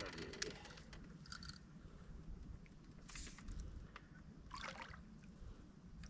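A few brief, soft water splashes from a hooked fish swirling at the lake surface, over a low steady rumble.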